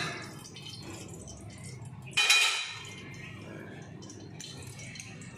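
Metal kitchen tongs clink once, sharply and with a short ring, against a bowl, a little over two seconds in.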